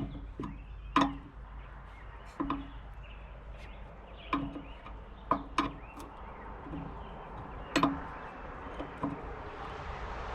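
An air-line fitting on a truck air-suspension bag being tightened with a wrench: scattered sharp clicks and knocks, about seven at irregular intervals, over a low steady hum.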